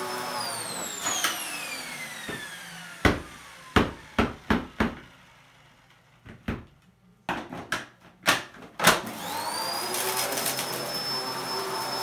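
Dyson DC04 upright vacuum switched off, its motor whine falling steadily as it spins down over about four seconds. Then a series of sharp plastic clicks and knocks as the machine is handled and its clear bin taken off. About nine seconds in the motor starts again, its whine rising quickly and settling at a steady high pitch.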